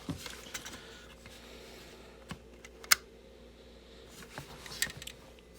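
Small hard-plastic toy playset pieces being handled: a few scattered light clicks and taps, the sharpest about three seconds in.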